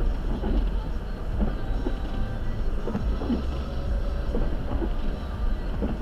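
Steady low rumble of a car being driven on a snowy road, heard from inside the cabin: tyre and engine noise.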